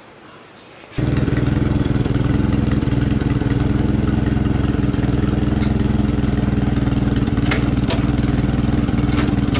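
Old Allis-Chalmers forklift's engine running steadily while the forklift holds a load, starting about a second in, with a few light clicks.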